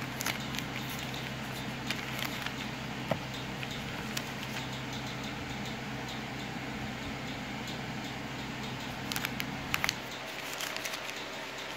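Clear plastic protective wrap being handled and pulled off a smartphone: scattered crinkles, light clicks and rustling, a cluster of them about nine to ten seconds in, over a steady low hum.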